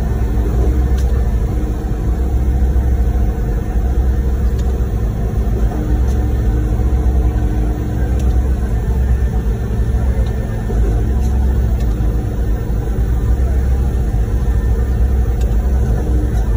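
Concrete pump truck running under load while pumping concrete: a steady, loud, deep rumble from its diesel engine and pump that swells and eases unevenly, with a steady hum over it.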